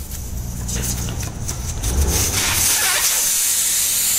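Clicks and rubbing of a valve-core tool at the tyre's valve stem, then from about two seconds in a loud, steady hiss of air rushing out of the open valve stem as the valve core is pulled and the tyre deflates.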